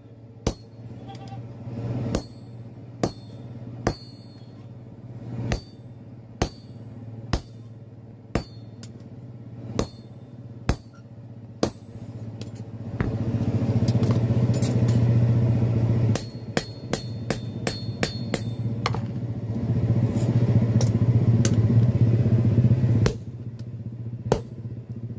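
Hammer blows on steel, roughly one a second, each with a short high ring. About halfway through they give way to a loud, steady mechanical running noise that stops shortly before the end.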